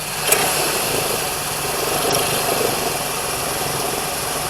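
2000 Chevy Cavalier 2.2-litre four-cylinder idling, with its accessory belt and pulleys running. A sharp click comes about a third of a second in as the AC compressor clutch cycles, and a coarser mid-pitched noise then joins the steady hum. The belt tensioner is on its way out and does not keep the belt tight when the compressor engages.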